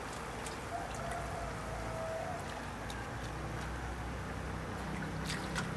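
A steady low rumble, with a few light clicks and rustles as cabbage leaves are handled in a metal pot, more of them near the end.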